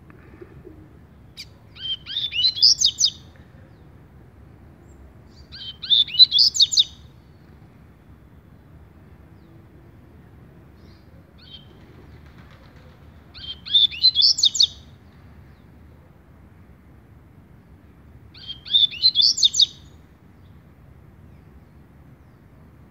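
Caged double-collared seedeater (coleira) singing its 'tui-tui' song: four short, high-pitched phrases, each a quick run of notes, with a longer pause between the second and third.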